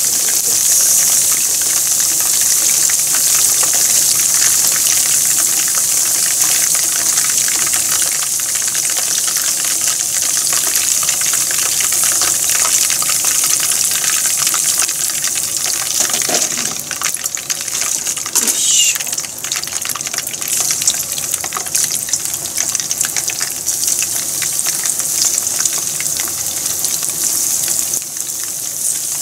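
Hot oil sizzling and crackling steadily as floured pieces of meat deep-fry in a pan.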